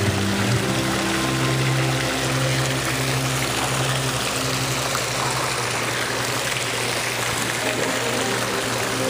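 Indoor fountain splashing into its basin: a steady rush of falling water. Faint low sustained tones that change every second or so run underneath.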